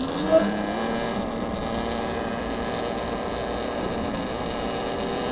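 Talaria XXX electric dirt bike's motor whining steadily while riding. The pitch climbs in the first half-second as it picks up speed, with one short loud peak just after the start.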